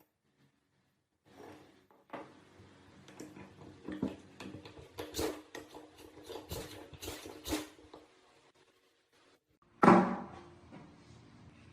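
Metal parts clinking and knocking together with a ringing tone, then one heavy metallic clunk with a ringing tail near the end.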